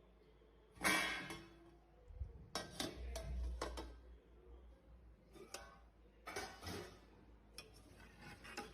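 Irregular clinking and clattering of kitchen dishes and utensils, in short bursts with pauses between.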